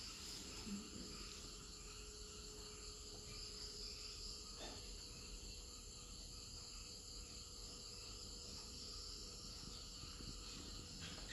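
Faint, steady insect chirring with a low steady hum, and a single soft click about halfway through.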